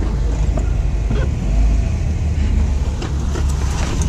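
Jeep Wrangler's engine running with a steady low rumble as it crawls along an off-road trail, with scattered knocks and clicks that grow more frequent near the end.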